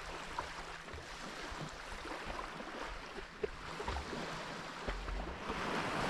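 Sea waves washing on the shore, with wind rumbling on the microphone; a wave surges in louder near the end.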